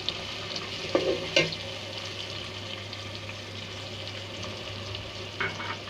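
Onion and ginger-garlic paste sizzling steadily in ghee in a metal pot, with chopped tomatoes just added. A metal ladle stirs and knocks against the pot, with two sharp knocks about a second in and another near the end.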